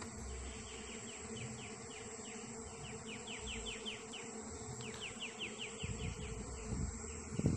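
Asian honey bees (Apis cerana) buzzing steadily around their hives. For much of the time a faint, rapid series of high chirps, several a second, sounds in the background.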